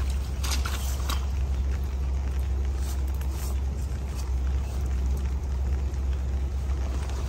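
A steady low rumble, with a few faint scrapes and taps of a small hand hoe working wet soil as seedlings are dug up and replanted.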